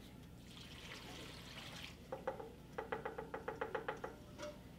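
Liquid mixture poured from a metal mixing bowl into a slow cooker, then about two seconds in a quick run of about a dozen ringing knocks on the metal bowl, about six a second, knocking the last of it out.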